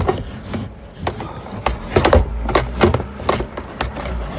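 Irregular knocks, clicks and rattles of hard plastic boot trim being handled and pushed into place around the tail-light housing, with a low rumble of the phone being handled.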